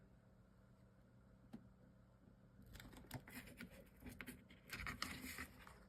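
Near silence, then from about two and a half seconds in, quiet irregular rustling and light tapping of chipboard and sticker-paper craft pieces being handled, loudest near the end.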